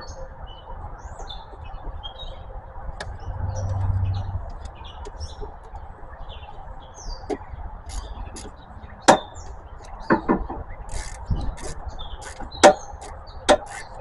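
Hand tools clinking and knocking on metal as the negative battery terminal clamp is fastened, with sharp knocks in the second half and a run of quick, even clicks near the end. Birds chirp faintly in the background.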